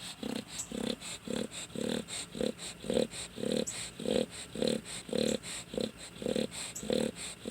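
Dog snoring in a quick, even rhythm, about two snores a second.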